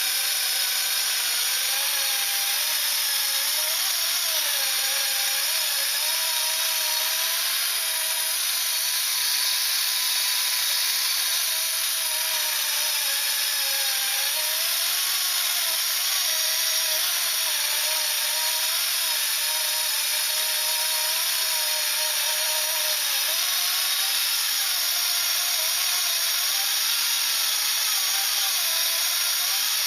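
Drive motors of Z-drive tug boats running on a test run: a steady whine with several tones drifting up and down in pitch as the speed changes, over a constant hiss.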